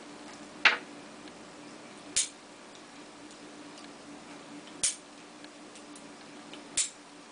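Heritage Arms single-action .22 revolver being loaded: the cylinder is turned by hand chamber to chamber through the open loading gate, giving four sharp metallic clicks spaced about one to two and a half seconds apart, with fainter ticks between them. A steady low hum sits underneath.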